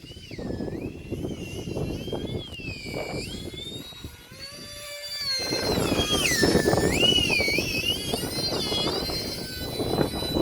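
Electric ducted fan of a UMX A-10 micro RC jet whining in flight, its pitch swooping up and down repeatedly and getting louder about halfway through. Wind buffets the microphone underneath.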